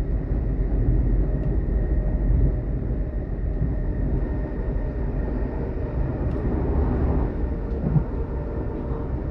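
Steady running noise inside a DB class 422 (ET422) electric multiple unit under way: a dense low rumble of the wheels on the track, with faint steady whining tones from the drive.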